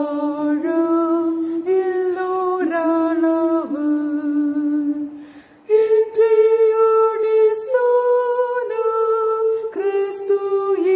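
One voice singing a Malayalam hymn unaccompanied, in slow held notes that step to a new pitch about once a second, with a short breath break about five seconds in.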